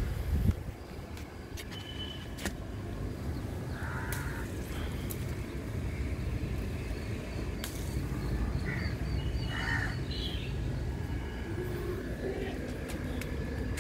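A few short bird calls, spaced seconds apart, with a quick run of high chirps from another bird in between, over a steady low rumble.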